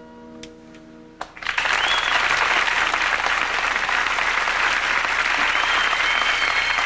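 The last notes of a solo acoustic guitar ring out and fade. About a second and a half in, a studio audience breaks into loud, sustained applause.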